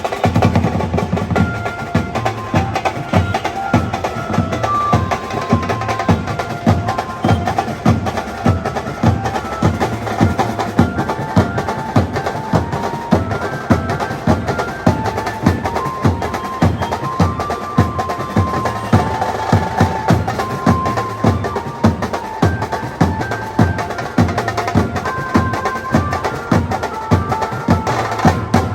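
Indian banjo party band playing: a stepping banjo melody over a steady, driving beat of drums and percussion.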